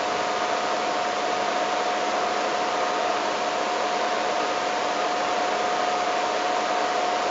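A steady, even hiss with a faint constant high hum, unchanging throughout.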